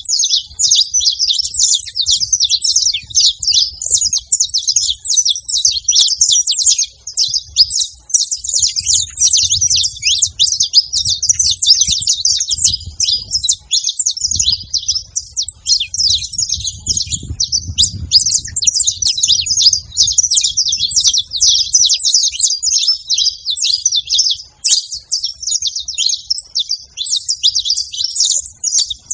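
A flock of wild saffron finches chattering at a feeding spot, with many rapid high chirps overlapping in a continuous din.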